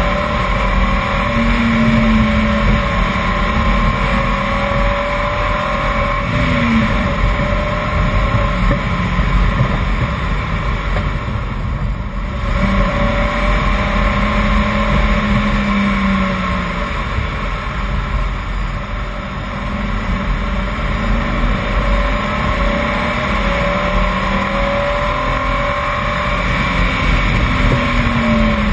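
BMW 328i's straight-six engine under load on a winding hill climb, its pitch rising and falling repeatedly as it accelerates and eases off between bends. Steady tyre and wind noise runs underneath, and the engine note drops briefly about halfway through.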